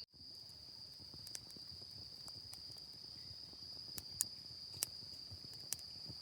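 An insect, cricket-like, singing one steady high-pitched trill without a break. A few sharp clicks come over it, the loudest a little after four seconds.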